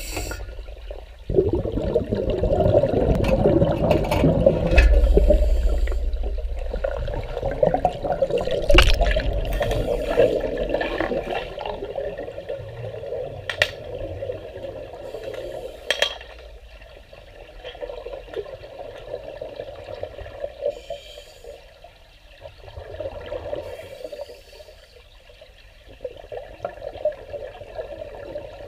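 A scuba diver's breathing heard underwater: exhaled air bubbling out of a regulator on a small pony cylinder, coming in surges and loudest in the first ten seconds, with a deep rumble partway through and a few sharp clicks.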